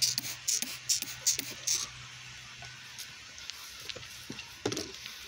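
Pressure washer spraying water in short hissing bursts for about the first two seconds, then a fainter steady hiss over a low steady hum. A single knock near the end.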